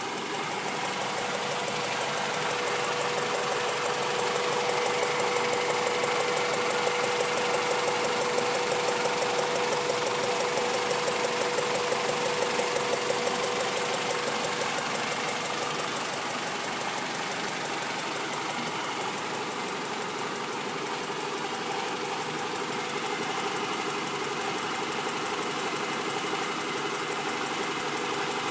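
Honda B16 DOHC four-cylinder engine idling with a steady, rapid ticking, which the owner takes for a ticking valve or a misfire. It eases slightly about halfway through.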